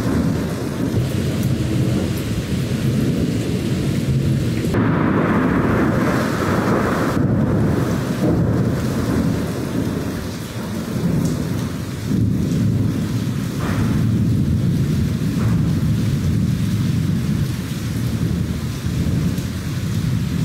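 Heavy rain falling during a thunderstorm, with thunder rumbling low and steady throughout; a louder stretch comes about five to seven seconds in.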